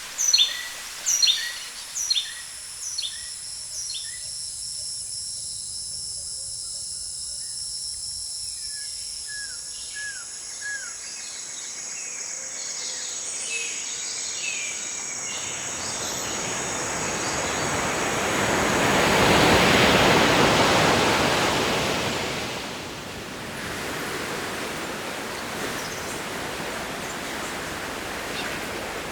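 Tropical forest ambience. A bird repeats a loud falling call about twice a second, then stops after a few seconds, over a steady high insect drone and scattered chirps. Around the middle a rushing noise swells up and dies away again.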